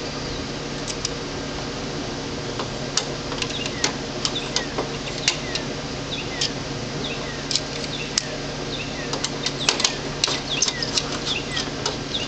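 Screwdriver clicking and scraping against metal as a ground-wire screw is turned down on the bus bar of a main electrical panel, the clicks coming faster in the second half. Short falling chirps and a steady hum run underneath.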